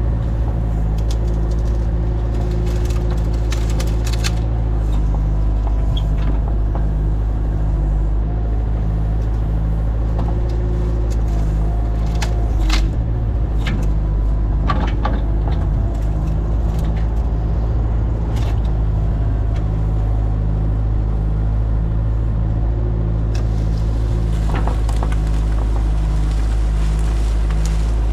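A large engine running steadily at a constant speed with a regular low pulse, and scattered knocks and clatters over it.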